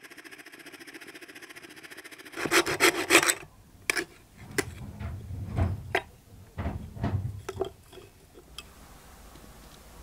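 Scroll saw blade cutting through a wooden board, a fast, even buzz. A little over two seconds in the saw stops and the rough edge of the cut wood is worked by hand: a second of loud rasping strokes, then scattered shorter rubbing and scraping strokes with a few sharp clicks, ending near the nine-second mark.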